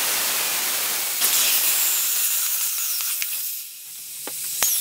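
Compressed air hissing out of the open drain valve under a McGraw 6-gallon pancake air compressor's tank as the tank is drained. The hiss turns brighter about a second in and thins to a higher hiss after about three and a half seconds, with a sharp tap near the end.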